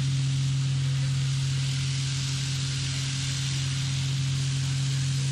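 Ultra-high-pressure water jet from a hull-stripping robot, hissing steadily over a constant low machine hum.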